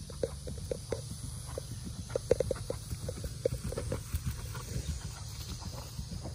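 Hoofbeats of a four-year-old horse ridden on grass, an uneven run of dull knocks, loudest and closest together about two seconds in.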